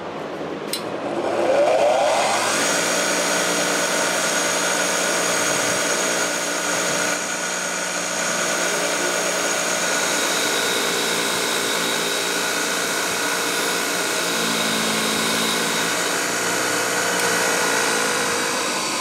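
Bench grinder motor starting up about a second and a half in, its pitch rising, then running steadily with a wire wheel brush as small steel ratchet parts are cleaned against it.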